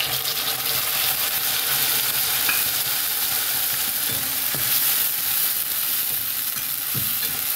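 Freshly ground tomato sizzling steadily in hot oil and whole spices in a stainless steel kadhai, with a metal spatula stirring it and knocking lightly against the pan a few times.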